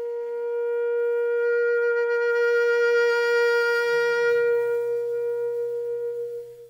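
Alto saxophone holding one long note that grows brighter in the middle, then fades and stops just before the end. A quiet low note joins underneath about four seconds in.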